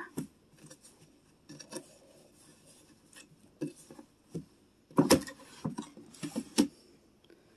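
Clothes rustling and a dresser drawer knocking as laundry is put away, with scattered clicks and the loudest knocks about five seconds in and again shortly before the end.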